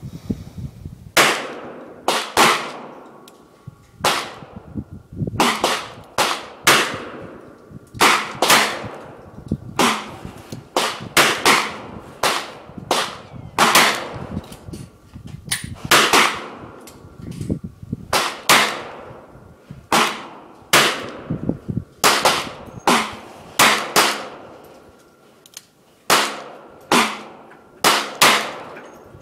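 Handgun shots on a range firing line, among them a Taurus .357 Magnum revolver firing for targets. There are many sharp shots at irregular spacing, often two or three a second as shooters fire in their own time, each followed by a short echo.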